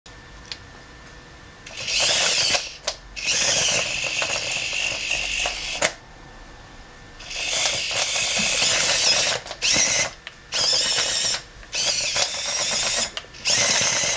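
Small electric drive motors of a 3D-printed tracked robot whining as they run its plastic track links, in about seven start-stop bursts, from under a second to nearly three seconds long, as the gamepad joystick is worked.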